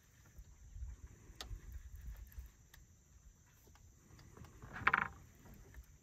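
A hooked fish at the side of a boat beside a landing net: an uneven low rumble in the first half, then a short splash at the surface about five seconds in.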